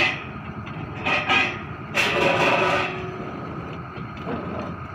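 Truck-mounted borewell drilling rig running steadily, with two louder rushes of noise about a second and two seconds in.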